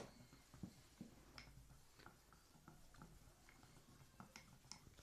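Faint scattered clicks and soft squishes of homemade slime mixtures being stirred in bowls, over near silence.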